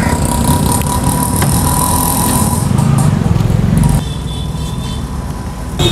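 Road traffic close by: a motor vehicle's engine running and passing with a steady low rumble that eases off about four seconds in.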